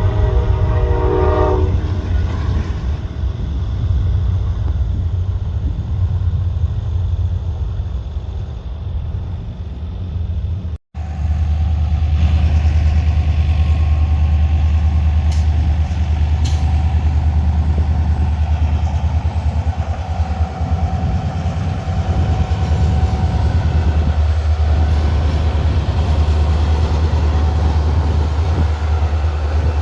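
Train horn sounding briefly at the start, then the steady rumble of a passing train. The sound cuts out for an instant about eleven seconds in.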